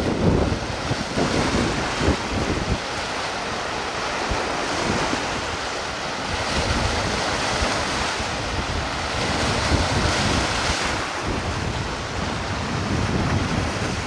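Wind buffeting the microphone in irregular gusts, strongest at the start, over a steady rush of wind and water.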